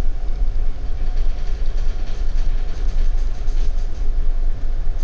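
Steady low machinery rumble, heaviest in the deep bass and even throughout, typical of the background noise on a ship's bridge from engine vibration and ventilation.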